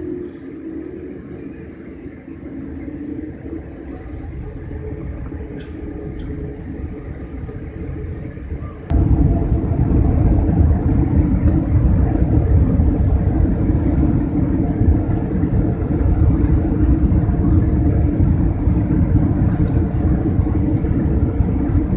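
Airliner jet engines heard from inside the cabin during takeoff, a rumble that builds gradually and then jumps to a louder, steady rumble about nine seconds in as the takeoff roll gets under way.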